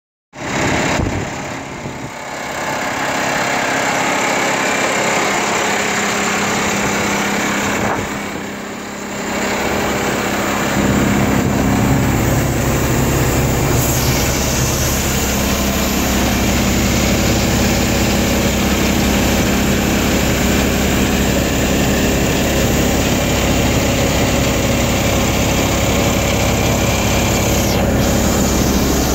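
Multifuel diesel engine of a 1983 AM General M49A2C 6x6 tanker truck running at a steady idle. From about ten seconds in it is heard from inside the cab, with a deeper, steadier rumble.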